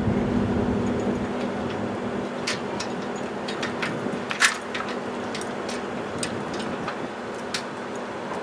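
Scattered sharp metallic clinks and rattles of trailer safety chains being handled and hooked onto a pickup's hitch, over a steady low hum that fades out in the first couple of seconds.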